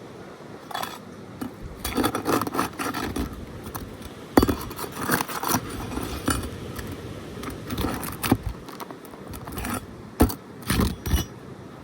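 Steel flat bar scraping and knocking against asphalt shingles and a roofing nail while prying the nail out from under a lifted shingle. Irregular metallic scrapes and clinks, with a sharp knock about four seconds in and several more near the end.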